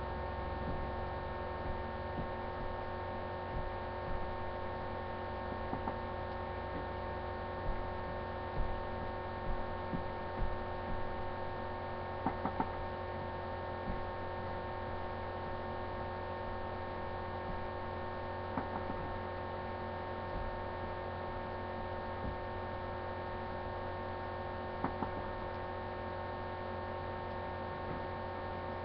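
A steady electrical hum, made of several level tones at once, with a few faint clicks and taps scattered through it, most of them between about 8 and 13 seconds in.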